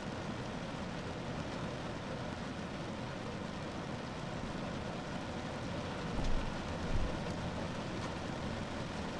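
Steady rain falling on a car roof, a dense even patter, with two brief low thumps about six and seven seconds in.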